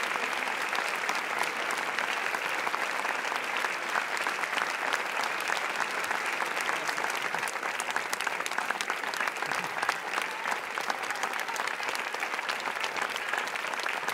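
Large theatre audience applauding, dense clapping that holds steady without a break.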